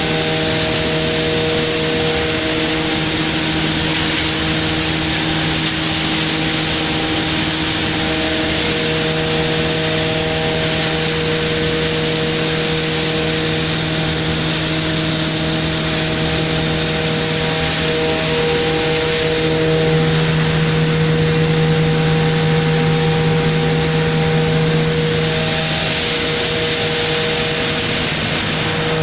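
JLSD1500 sawdust machine and its production line running: a steady, loud machine drone of several humming tones over a dense hiss, growing louder for a few seconds past the middle.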